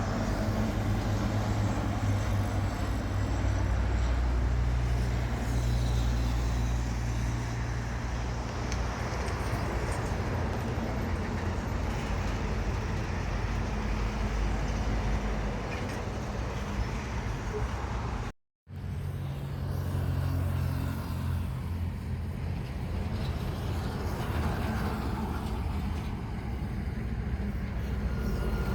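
Steady low outdoor rumble of engine and traffic noise, a little stronger early and easing slowly, with the sound cutting out completely for a moment about two-thirds of the way through.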